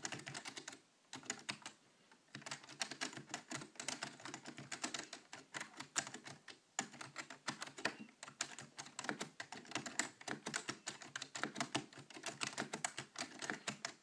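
Typing on a Matias Quiet Pro mechanical keyboard with non-click, Alps-like switches: a fast, continuous run of key presses, with a pause of about a second near the start.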